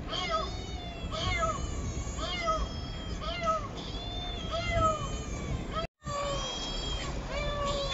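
Domestic cat meowing over and over, short calls that rise and fall in pitch, one or two a second.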